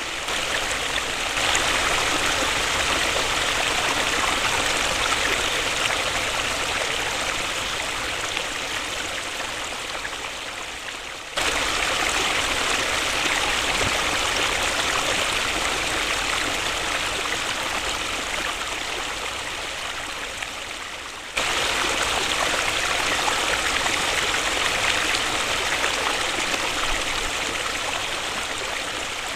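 Waterfall rushing as a steady, even wash of water noise. Its level slowly sags and then jumps sharply back up twice, about 11 and 21 seconds in.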